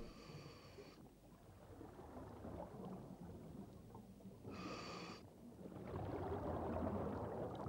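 Scuba diver breathing through a regulator: two short, steady whistling inhalations about four and a half seconds apart, each followed by a rumble of exhaled bubbles, the second rush louder and longer.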